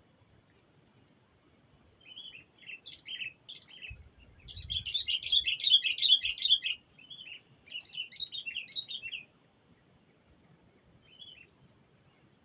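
Sooty-headed bulbul (kutilang) calling in quick chattering runs of notes, starting about two seconds in, loudest in the middle, then stopping, with one short call near the end.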